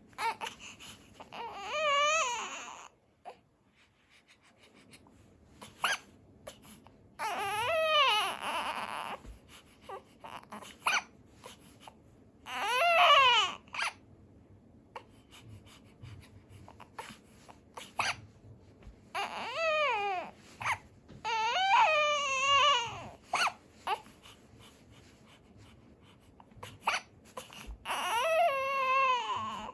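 About six drawn-out crying calls, each a second or two long, with a wavering pitch. Short sharp sounds fall between them.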